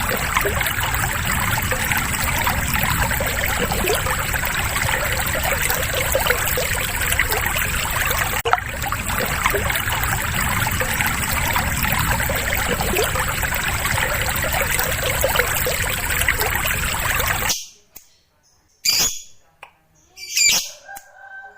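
Lovebird's long, harsh, rapid chattering song (ngekek), dense and continuous, cutting off abruptly about 17 seconds in. It is followed by three short separate calls.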